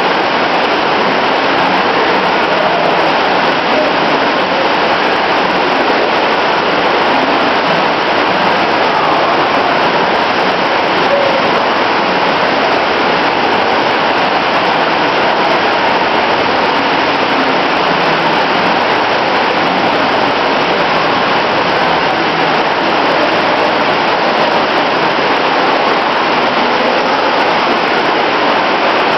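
Steady, loud background noise: an even hiss that holds the same level throughout, with no distinct events.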